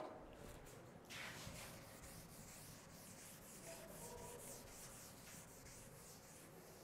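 Chalkboard duster wiping chalk off a blackboard in repeated back-and-forth strokes, starting about a second in; faint.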